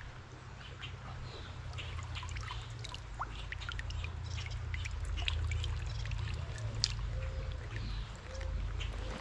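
Creek water trickling and splashing close by, over a steady low rush of flowing water, with a few faint short bird calls in the second half.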